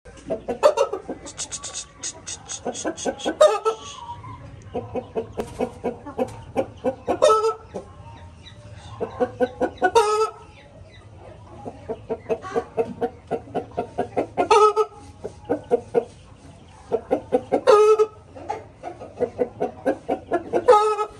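Shamo chickens clucking in quick runs that each end in a louder squawk, six times over: a cackle.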